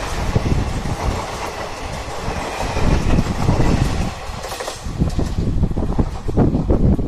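Express passenger train's coaches running past at speed, a loud rumble with wheels clattering over the rail joints.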